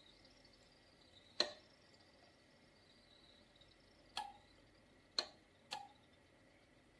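Four sharp clicks spaced irregularly, each with a short ring after it, over a faint steady hiss and a thin steady high tone.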